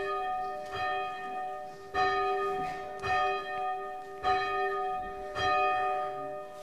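A single church bell tolling, one stroke roughly every second, each stroke ringing on into the next.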